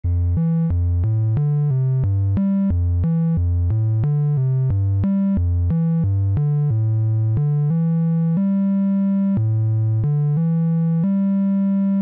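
Background music: a synthesizer playing a single melody line of short notes, about three a second, that give way to longer held notes about seven seconds in.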